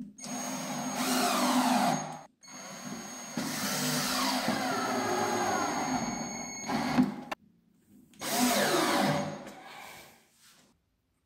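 Metabo Li-Power cordless drill/driver driving screws through a metal drawer slide into wood, in three runs of a few seconds each, its motor whine falling in pitch as the screws drive in.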